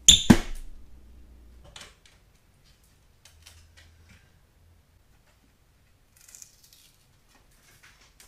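Ceiling trim board cracking and snapping as it is pulled off the edge of the attic opening, with two sharp cracks right at the start. A few faint knocks and scrapes follow as it comes loose.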